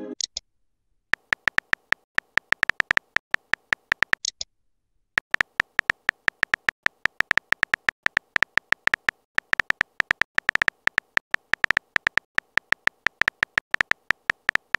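Phone keyboard tap sound effects, one short click per typed letter, in quick runs with a short pause about four and a half seconds in. A brief high chirp sounds near the start and again just before the pause.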